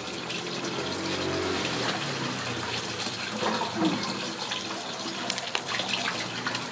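Scissors snipping open a small plastic seasoning sachet, with a few sharp crinkles and snips about four seconds in and again near the end, over a steady rushing hiss like running water.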